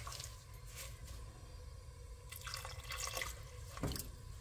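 Water trickling into a pot of sugar while a silicone spatula stirs and scrapes through the wet sugar, with a few soft scrapes.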